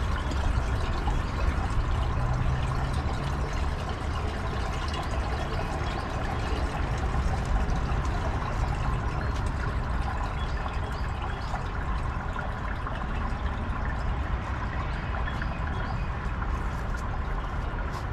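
Water running and trickling from a hose into an open sewer cleanout pipe filled to the brim for a sewer leak test.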